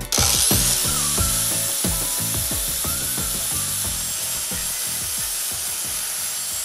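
A power grinder grinding a steel knife blade: a steady, hissing grind that starts suddenly and holds even.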